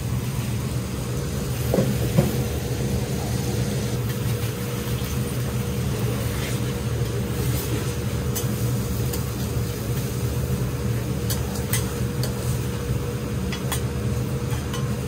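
Cooking at a teppan griddle: a steady low hum with faint sizzling, two sharp taps about two seconds in as an egg is cracked onto the hot plate, and light metal spatula clicks and scrapes later on.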